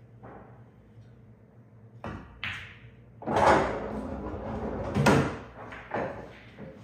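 Pool balls knocking and clunking on a sinuca table during a shot: a few knocks, then a louder rumbling clatter about three to five seconds in.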